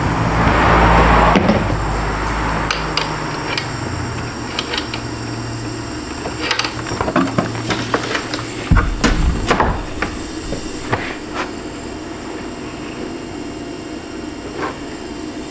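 Compressed air hissing briefly at first, then scattered metallic clicks and knocks of hand tools being handled on the engine, over a low steady hum that stops partway through.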